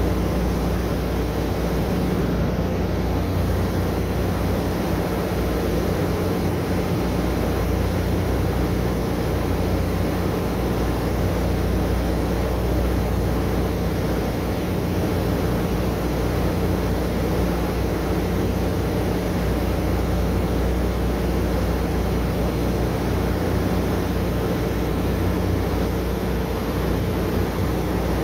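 Oil-well drilling rig running steadily while drilling: a constant low machinery hum with an even rush of noise over it, unchanging throughout.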